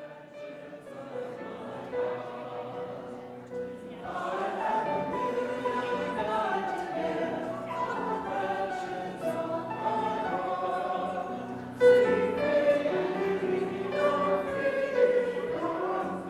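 A choir singing sacred music. It begins softly, grows fuller about four seconds in, and swells louder near twelve seconds.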